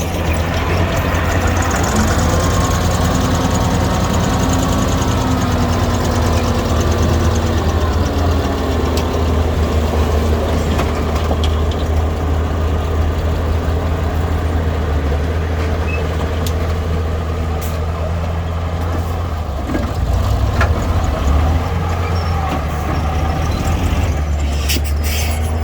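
Heavy-equipment diesel engine running steadily with a deep hum, its pitch shifting a little up and down in the first several seconds. A few sharp clicks near the end.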